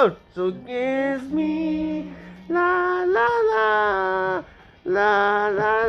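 A voice singing long held notes a cappella, in several drawn-out phrases with short breaks between them.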